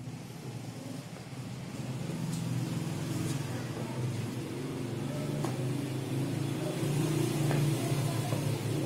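A steady low engine rumble, like a motor vehicle running nearby, slowly getting louder. A few faint taps of sneakers stepping on a tiled floor.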